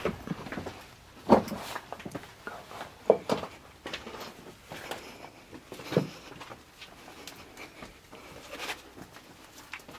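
Irregular footsteps and scuffs on rocky cave ground, with a few louder knocks, the strongest about a second in, three seconds in and six seconds in.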